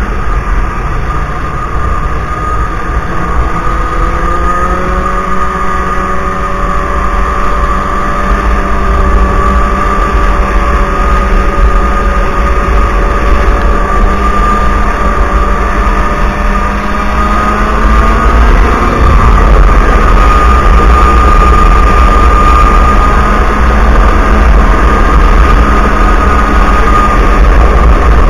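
Snowmobile engine running steadily along a trail, its pitch slowly rising and the sound getting louder about two-thirds of the way through as the sled picks up speed.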